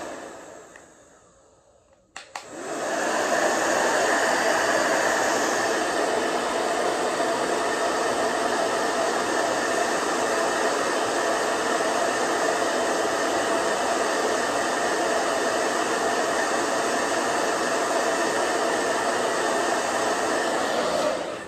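Small handheld blow dryer switched on with a click about two seconds in, then blowing steadily at one setting, cutting off at the very end.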